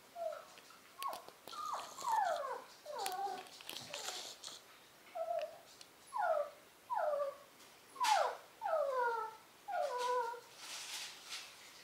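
Poodle puppy whining: a string of short whimpers, each falling in pitch, coming in clusters with a short pause about four seconds in.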